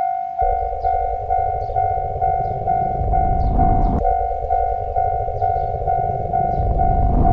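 Japanese railroad crossing alarm ringing its repeating electronic 'kan-kan' tone about twice a second while a train passes through the crossing; the train's rumble comes in about half a second in and swells twice as the cars go by.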